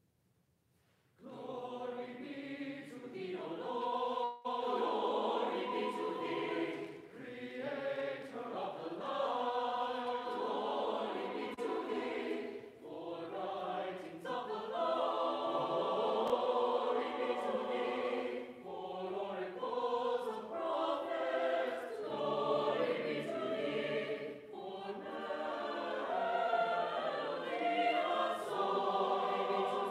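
Mixed choir of men's and women's voices singing a slow sacred piece unaccompanied, entering together about a second in after a silence.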